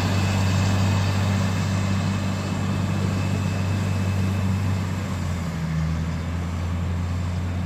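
A motor vehicle's engine running steadily: a low drone with noise over it, dropping slightly in pitch about five seconds in.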